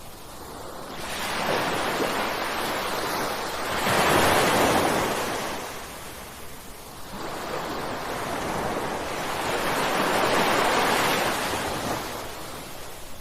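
Ocean waves crashing and washing in, swelling and ebbing in two surges about six seconds apart; the louder one comes about four seconds in.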